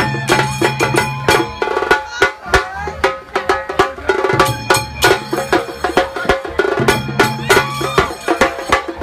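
Slung double-headed drums beaten with sticks in a fast, dense rhythm, over music with a pitched melody line and a steady bass.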